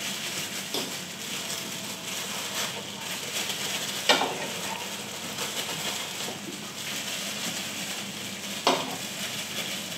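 Steady kitchen hiss with three short, light clinks, small spoons against bowls while food is dipped and coated in beaten egg.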